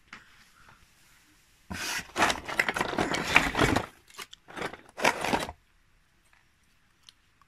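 Hand rummaging through a cardboard box of rusty old iron pieces and wood scraps: about two seconds of scraping and crunching, then two short bursts of rustling and clinking.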